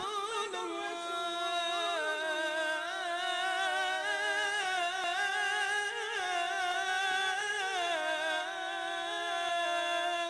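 Background music: a slow melody in long, wavering held notes.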